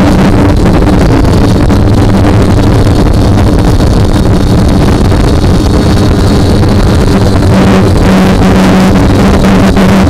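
Multirotor drone's electric motors and propellers buzzing loudly at a steady pitch, heard from the camera on the drone, with wind rush on the microphone.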